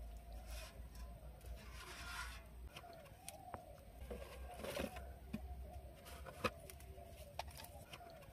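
Faint outdoor ambience of birds calling steadily in the background, with a few short rustles and clicks from a woven bag and metal plate being handled, loudest about two seconds in and again near the middle.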